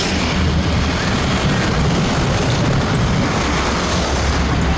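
Steady roadside traffic noise: a low engine rumble with tyre and road noise, and no horn sounding.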